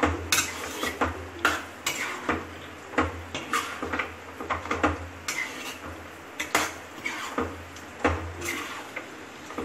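Metal spoon scraping and knocking against a cooking pan while a thick mix of chickpeas and mashed potato is stirred, in irregular strokes about one to two a second.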